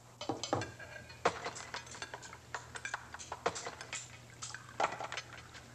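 Cutlery clinking and scraping on plates as people eat: irregular light clinks, a few of them louder, over a faint steady low hum.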